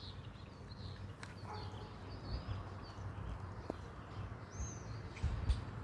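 Faint outdoor background: small birds chirping now and then over a low rumble, with a couple of faint clicks.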